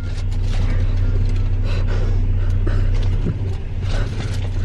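Car engine idling, a steady low hum heard from inside the cabin, with scattered light clicks and knocks over it.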